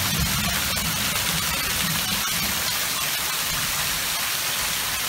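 Heavy rain falling steadily into a swimming pool and onto its wet concrete deck, a dense even hiss. The tail of a low thunder rumble dies away over the first couple of seconds.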